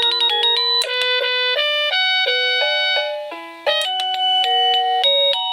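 1Byone Easy Chime plug-in wireless doorbell playing an electronic Christmas melody as a string of clear, bell-like notes. There is a short break a little past three seconds in, then the tune carries on.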